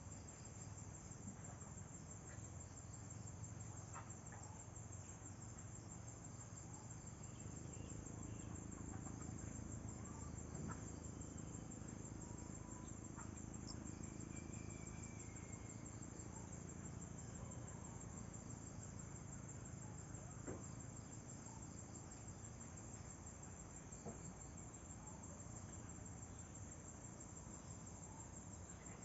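Crickets chirping in a continuous high trill over a low background rumble, with a few faint clicks.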